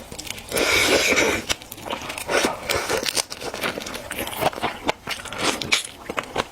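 Close-miked eating of seafood: chewing and crunching with many sharp clicks and crackles, and a louder, longer noisy burst about half a second in.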